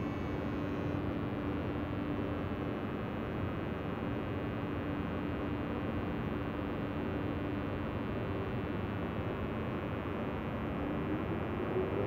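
Freight train locomotive running with a steady hum, heard at a distance along the tracks; near the end a whine rises steadily in pitch and grows louder as the train starts to pull away.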